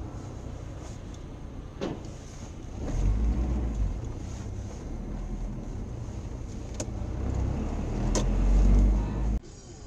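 Car engine and road noise heard from inside a moving car, a low rumble that swells about three seconds in and again near the end as the car picks up speed, with a few sharp clicks. It cuts off suddenly near the end.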